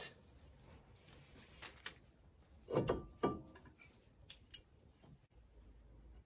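Light clicks and metallic clinks of small hand tools and a small screw being handled as a brake disc retaining screw is fitted. A louder clatter with a brief metallic ring comes about three seconds in.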